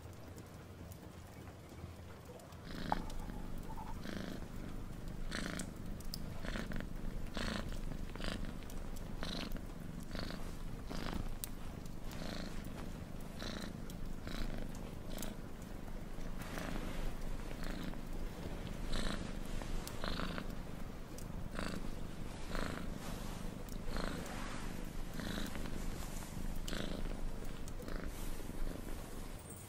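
A domestic cat purring steadily, the purr swelling and fading about once a second with its breaths, starting about three seconds in.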